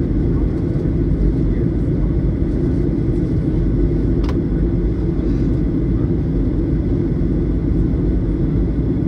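Steady roar of a Boeing 737's wing-mounted turbofan engine and rushing airflow, heard inside the cabin beside the wing as the jet descends on approach. A single short click sounds about four seconds in.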